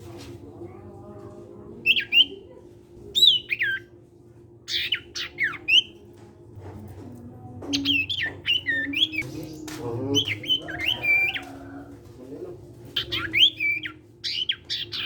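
A caged sirtu songbird singing in its 'cipow' style: clusters of short, sharp whistled calls that slide downward, separated by pauses of a second or two. A steady low hum runs underneath.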